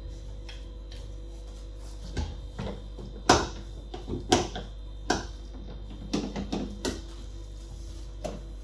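A run of irregular light clicks and knocks, the loudest about three seconds in, over a steady low hum.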